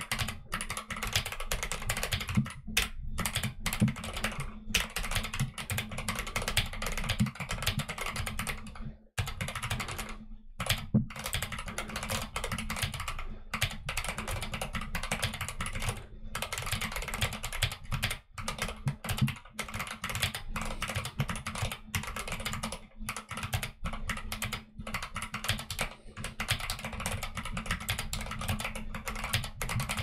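Fast, continuous typing on a custom mechanical keyboard: a YMDK Wings Alice-layout board with Akko Jelly Black linear switches and Akko Neon keycaps. It makes a rapid, unbroken clatter of keystrokes, with a couple of brief pauses about nine and ten seconds in.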